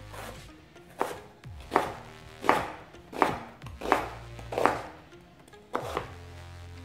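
Chef's knife slicing through an onion and striking a plastic cutting board: about eight even chops, roughly one every three-quarters of a second, over faint background music.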